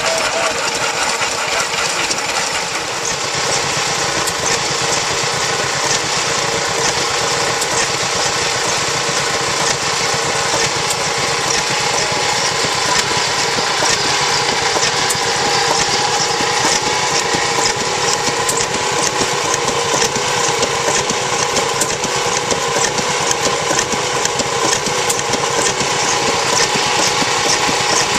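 Vintage stationary engines running steadily: a continuous mechanical clatter with regular sharp ticks and a steady hum.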